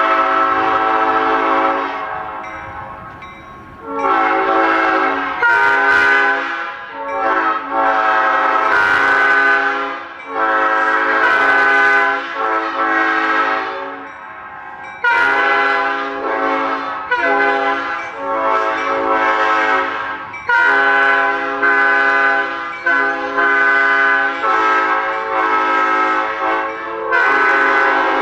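Five-chime locomotive air horn blowing a series of long blasts, each a few seconds long with brief breaks between them, its chord holding steady in pitch.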